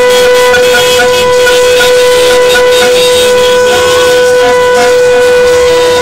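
The Testy siren sounding one loud, steady tone that does not rise or fall, with fainter crowd noise and shorter tones beneath it.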